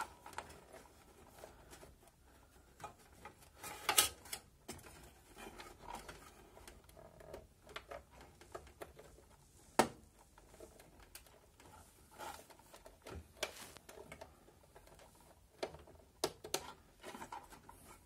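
Hands rearranging power-supply cables inside a PC case: scattered small clicks and rustles of cables and connectors being handled, with sharper clicks about four and ten seconds in.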